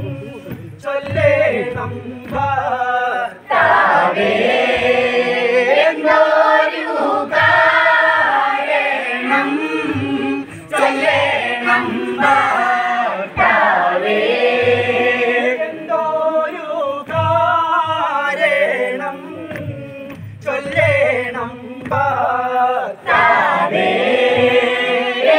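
A mixed group of voices singing a Malayalam kaikottikali folk song in chorus, with the dancers' hand claps falling in time with the song.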